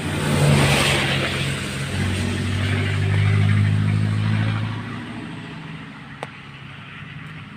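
A motor engine passing by: a low steady hum that swells, is loudest about two to four seconds in, and fades away after about five seconds.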